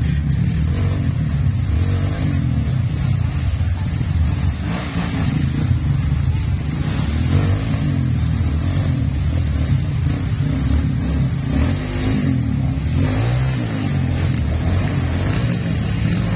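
Trail motorcycle engine running at low revs, its pitch wavering up and down with the throttle.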